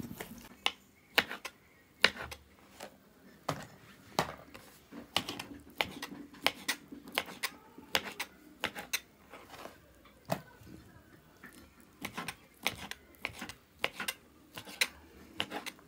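Small kitchen knife cutting grilled lamb liver into cubes, the blade tapping the plastic cutting board in sharp irregular clicks, about two or three a second.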